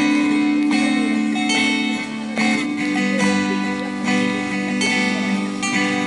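Four acoustic guitars strumming chords together in an instrumental ensemble piece, with repeated strokes at a steady pace.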